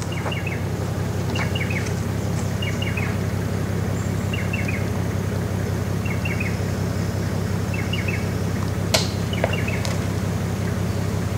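Suzuki Jimny's engine running with a steady low drone as it crawls over a rutted rock track. A bird repeats a quick cluster of three or four falling chirps every second or two, and there is one sharp knock about nine seconds in.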